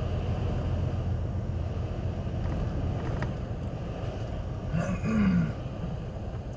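Steady low engine and road rumble from a truck driving slowly, at around 30 km/h, heard from inside the cab. About five seconds in comes a brief rising pitched sound, the loudest moment.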